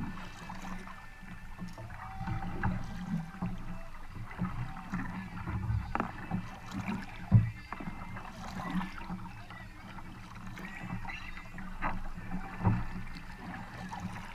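Kayak paddle strokes: the double blades dip, pull and splash through the creek water stroke after stroke, with water trickling off the hull. A few sharp knocks stand out, the loudest about halfway through.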